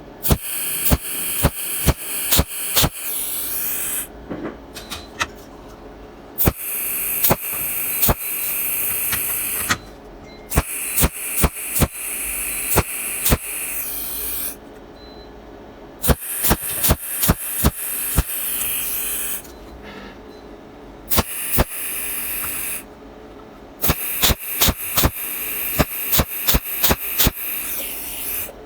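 Electric welding arc hissing and crackling in runs of a few seconds, with sharp pops throughout, broken by short pauses between beads.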